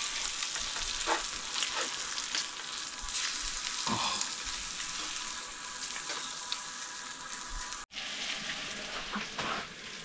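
Panfish fillets sizzling in a hot metal skillet, with the scrape and clink of a slotted metal spatula moving them around the pan. The sizzle cuts out for an instant about 8 seconds in.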